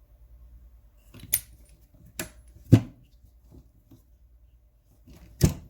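A socket set being handled: four sharp clicks and clacks of the sockets and their holder, the loudest about three seconds in and another near the end.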